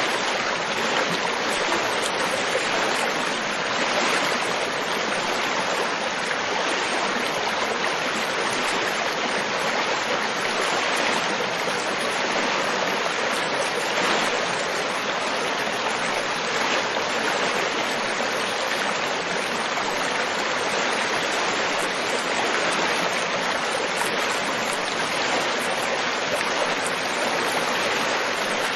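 River water flowing over rocks: a steady, even rush and babble with no breaks.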